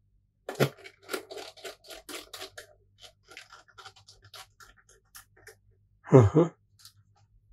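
Hands and a screwdriver working a PlayStation 3 disc drive's sheet-metal cover: a quick run of small clicks and scrapes, then one louder clunk about six seconds in as the cover is pressed down.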